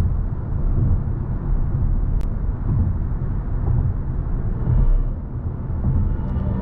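2023 BMW i7 xDrive60 electric sedan driving, a steady low road rumble with no engine note. A single sharp click about two seconds in.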